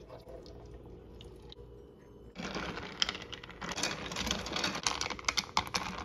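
Ice cubes clattering and clinking against a glass pitcher as a drink is stirred with a spoon, a dense run of quick clicks starting about two seconds in.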